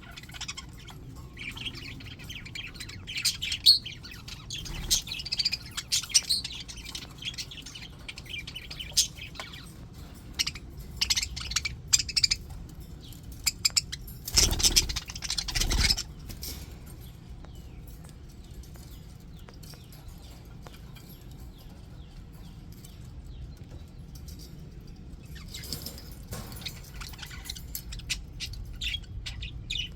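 A flock of English budgies chattering, warbling and chirping in dense, overlapping bursts. About halfway through there is a loud rustling noise lasting under two seconds. After it the flock goes quieter, and the chatter picks up again near the end.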